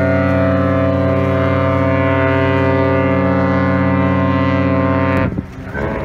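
Ship's horn giving one long, steady blast with several tones at once, which cuts off suddenly about five seconds in.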